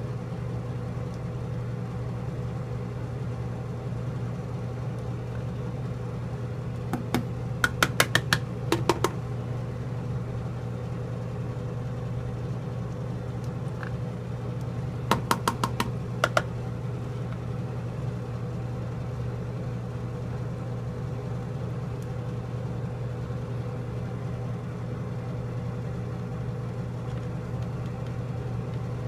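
A steady low mechanical hum runs throughout. Two short runs of sharp clicks, about six and then about five in quick succession, come about a quarter of the way in and again a little past the middle.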